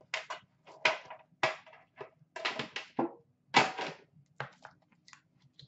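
Upper Deck The Cup metal card tin and the cardboard box inside being handled: an irregular run of short rustles, scrapes and taps as the tin lid comes off and the box is lifted out.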